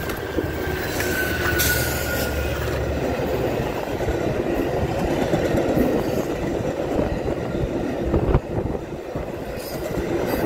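A Metra EMD F59PHI diesel locomotive passes close by at speed, its engine humming for the first few seconds, with a thin whine that falls in pitch as it goes by. Then its bilevel passenger coaches roll past with a steady rumble and wheel clatter on the rails, and there is one sharp knock near the end.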